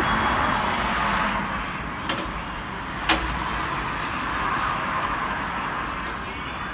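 Road traffic hiss, car tyre noise that swells and eases. Two sharp clicks about a second apart near the middle.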